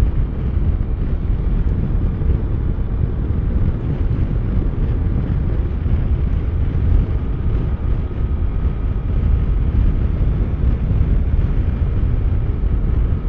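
Steady low rumble of wind and road noise while riding a Yamaha scooter, with its engine under the rush, picked up by a lavalier mic inside a full-face helmet.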